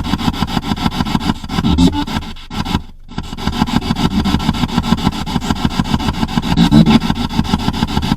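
Spirit box sweeping through radio stations: loud static chopped into fast, even pulses, with a brief dropout about three seconds in.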